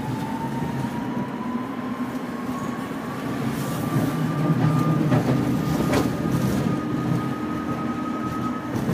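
Tram's electric traction motors whining, rising steadily in pitch as it picks up speed and levelling off in the second half, over the rumble of its wheels on the rails. A few sharp clicks from the track come about five to six seconds in.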